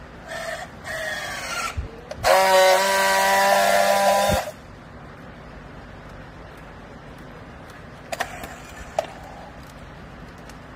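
A horn sounds loud and steady for about two seconds, a couple of seconds in, after a few shorter wavering tones, over a steady low machine hum. A few faint clicks come near the end.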